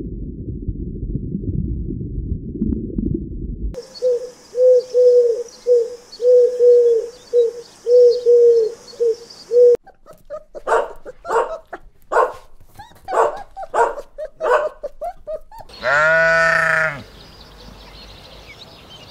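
A steady low rumble, then a run of short, evenly repeated low calls. Two puppies yipping and growling as they play follow, then one long sheep bleat about sixteen seconds in.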